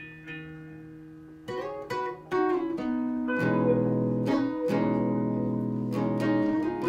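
Acoustic and electric guitar playing a song's instrumental intro. A chord rings out softly at first, picked notes start about a second and a half in, and the two guitars come in fuller and louder about three seconds in.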